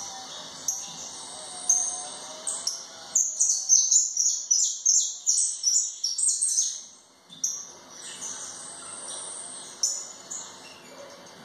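Caged saffron finch (jilguero) singing: a fast run of short, high chirping notes, densest in the middle, with a second burst a little before the end.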